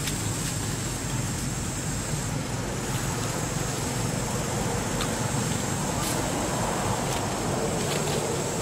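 Steady outdoor background noise: an even low rumble with a thin high hiss held on top, and a few faint ticks in the second half.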